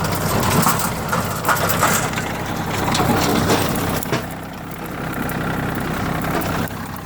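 John Deere 790 compact tractor's diesel engine running with the PTO-driven John Deere 550 rotary tiller turning soil: a steady engine hum under a gritty crunching and crackling, which eases off a little past four seconds and picks up again near the end.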